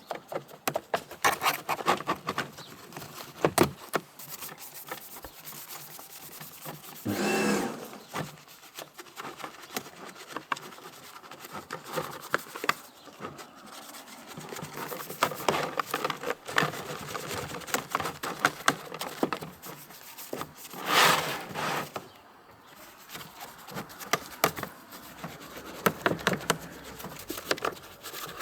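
Brush scrubbing mud off an RC car: irregular scratchy strokes and clicks. A short louder sound about seven seconds in and a louder, noisier burst about twenty-one seconds in.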